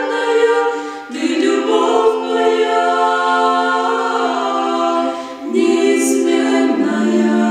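A mixed vocal quartet of three women and a man singing a Christian song a cappella, holding long chords that shift together a few times. These are the song's closing phrases.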